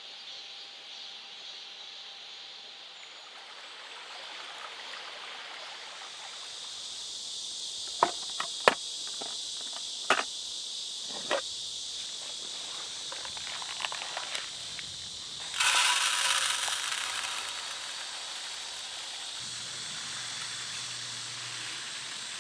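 Steady, high insect chorus. A few sharp clicks about eight to eleven seconds in, and a loud rushing noise lasting about a second and a half, about fifteen seconds in.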